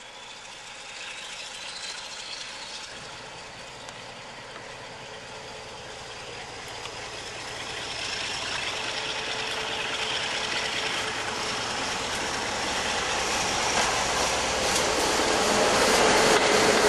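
Class 47 diesel locomotive, with its Sulzer V12 engine, hauling a passenger train as it approaches and passes close by. The engine and wheel noise grow steadily louder, with a high whine above them, and are loudest near the end as the locomotive draws level.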